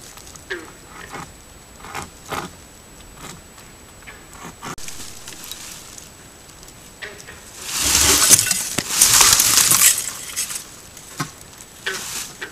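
Scattered light clicks and rustles, then a loud, close rustling scrape for about two seconds in the middle, and a few more clicks near the end: brush and twigs being disturbed right at a trail camera.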